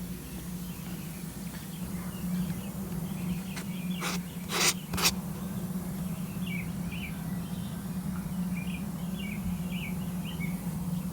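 Sawmill machinery running with a steady low hum. Three sharp knocks come about four to five seconds in, and short high bird chirps repeat through the second half.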